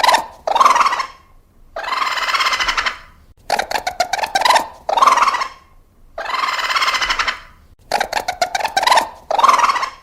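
Raccoon calls: a rapid chittering trill, a short squealing cry, then a longer harsh churring call, the same sequence repeating every three and a half seconds or so.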